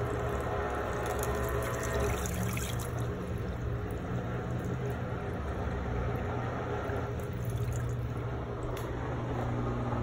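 Soapy wash water running steadily out of a Giantex portable washing machine's drain hose into a sink drain, with a steady low hum underneath.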